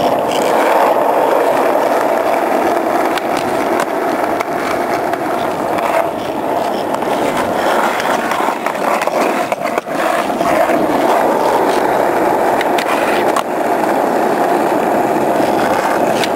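Skateboard wheels rolling steadily over rough concrete, a continuous rolling rumble, with a few short sharp clacks of the board now and then.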